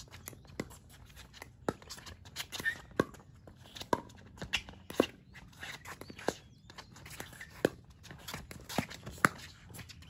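Pickleball paddles hitting a plastic pickleball back and forth in a doubles rally: a long, quick run of sharp pops, roughly one to two a second, the loudest near the middle and the end.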